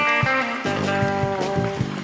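Rock band playing live: electric guitar playing a riff with a bent note, over electric bass and a drum kit. The bass and drums drop out at the start and come back in about half a second in.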